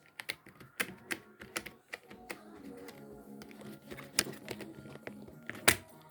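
Membrane computer keyboard being pressed and tapped: irregular plastic key clicks and clacks, some louder strikes among softer ones.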